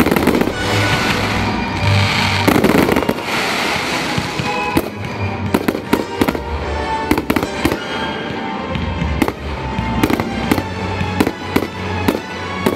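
Aerial fireworks bursting: two heavy bursts in the first three seconds, then a quick run of sharp cracks and pops from about five seconds in. Music plays along with the display underneath.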